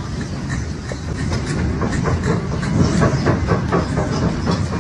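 Earthquake shaking: a continuous deep rumble with dense rattling and clattering, loudest about halfway through.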